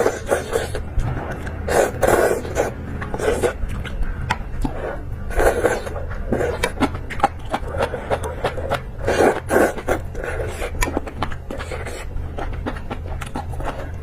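Close-miked eating sounds: chewing and mouth noises in repeated bursts every one to two seconds, with many small sharp clicks, over a steady low hum.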